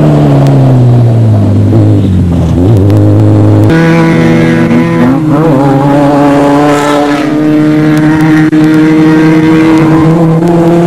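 Off-road desert race vehicle engines running hard. The engine note falls in pitch over the first few seconds, then cuts abruptly to another engine held at steady high revs with small rises and dips.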